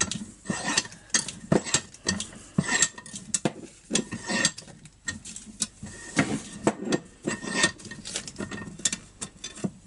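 Irregular metallic clicks and clinks, a few with a short ring, as a bench vise is tightened onto the steel recoil spring of a chainsaw starter.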